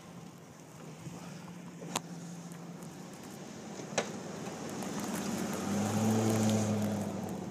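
A motor vehicle passes: its engine hum and road noise grow louder to a peak about six seconds in, then fade. Two sharp clicks come about two seconds apart before it builds.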